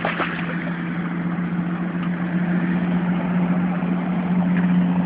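A steady engine-like hum runs under a rushing noise. In the first half second a hooked moncholo catfish thrashes and splashes at the water's surface.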